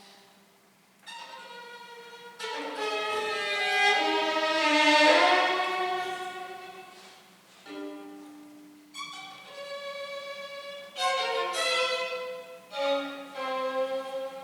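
Background music: a slow melody of held notes in several phrases, loudest about five seconds in.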